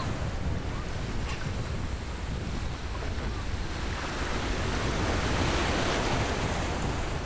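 Wind buffeting the microphone over shallow sea water washing and lapping around a wooden pirogue; the wash swells up about four seconds in.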